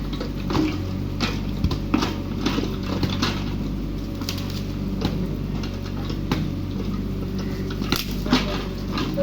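Mini excavator's diesel engine running steadily at work, with scattered clicks and knocks over it.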